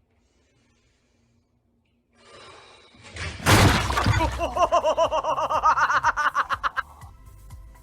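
Near silence, then a sudden loud crash about three and a half seconds in, followed by a person laughing hard in quick, rapid bursts for about three seconds.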